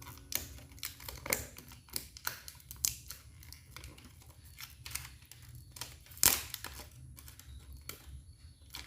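Scattered small clicks, taps and light rustling of hands handling a smartphone and its packaging, with one sharper knock about six seconds in.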